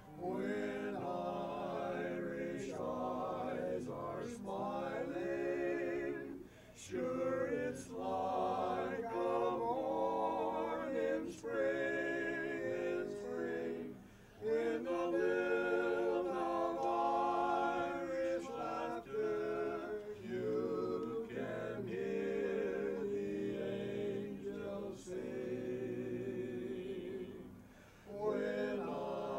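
Barbershop quartet singing a cappella, several voices together in sung phrases with brief breaks between them.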